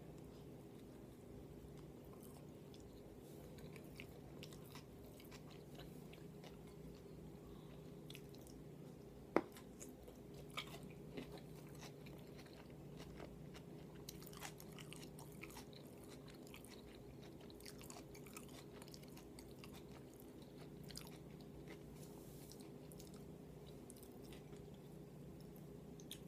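Close-miked chewing and mouth noises of someone eating, with scattered small wet clicks and one sharper click about nine seconds in, over a steady low hum.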